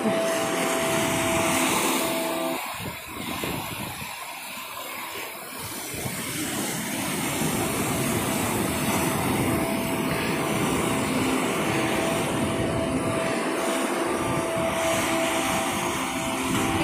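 Ocean surf breaking on rocks and washing up the sand: a steady rush of foaming water that eases briefly about three seconds in, then swells again.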